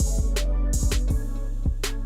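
Background music with a steady beat: a deep bass line under sharp drum hits and a few instrument notes.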